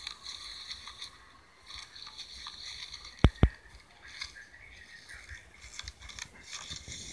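Homemade slime being squished and kneaded by hand in a plastic bowl, giving a run of small sticky crackles and clicks. Two quick knocks come close together about three seconds in.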